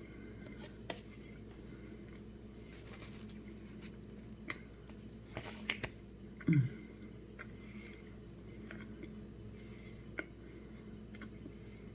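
A person chewing something hard and frozen, with scattered crisp crunches spaced a second or more apart; the loudest comes about six and a half seconds in.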